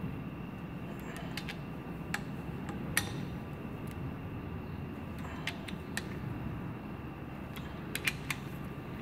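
Scattered short metallic clicks in small groups from a socket ratchet wrench working the cylinder-head bolts of a Thermo King engine, over a steady hum of workshop background.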